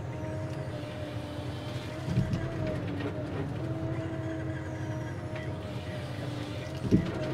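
Ponsse Scorpion harvester's engine and hydraulics heard from inside the cab: a steady low running sound with a pitched hum that dips briefly and comes back as the crane and harvester head work. Two sharp thumps stand out, about two seconds in and near the end.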